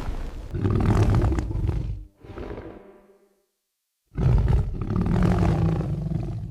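A big animal roaring twice: one long roar that trails off, a moment of silence, then a second roar starting about four seconds in.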